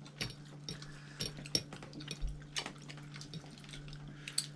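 Scattered small clicks and taps of people eating a prawn meal with their hands: prawn shells being peeled, with light knocks of fingers and forks on plates. A steady low hum runs underneath.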